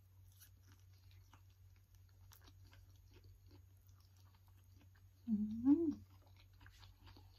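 Soft, wet chewing and mouth clicks of a person eating creamy ripe durian flesh. About five seconds in comes a short closed-mouth "mmm" hum that rises in pitch.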